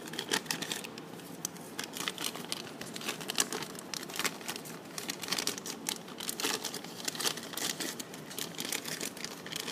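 Plastic bubble-wrap pouch crinkling and crackling as a squishy toy is packed into it by hand, a steady run of small irregular crackles.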